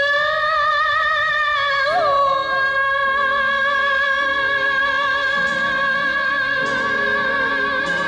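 Song music: a singer holds one long note with vibrato, a brief pitch flick about two seconds in, over soft accompaniment.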